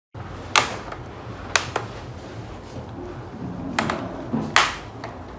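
A few sharp plastic-and-metal clicks and knocks of laptop parts being handled during a hardware upgrade: one, then two close together, then two more and a louder knock near the end, over a low steady background hum.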